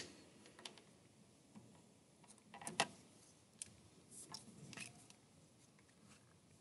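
Quiet room with a few faint scattered clicks and rustles, the loudest a little before the middle.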